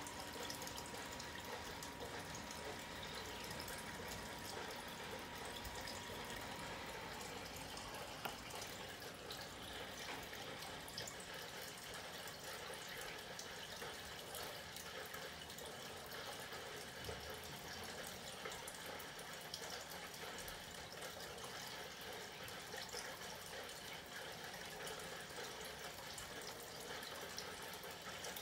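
Faint, steady running-water sound: an even hiss flecked with small ticks and drips. A thin high tone holds underneath for about the first seven seconds, then stops.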